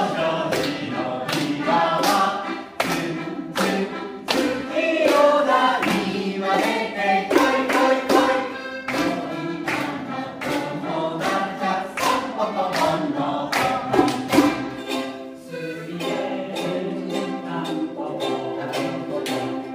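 A song sung by several voices together over a strummed string accompaniment, with an even strumming beat.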